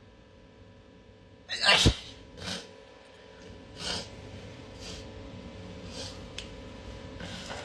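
A person sneezing hard once about a second and a half in, followed by several shorter, quieter bursts. A rough rubbing noise begins near the end.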